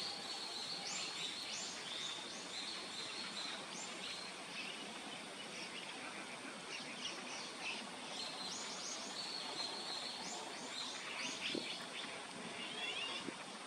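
Small birds chirping: short, high chirps repeating in clusters over a steady outdoor background hiss.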